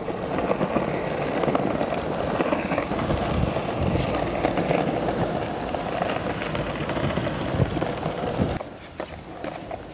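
Skateboard wheels rolling over brick paving: a steady, gritty rumble with many small knocks. It drops away sharply near the end, leaving a few clicks.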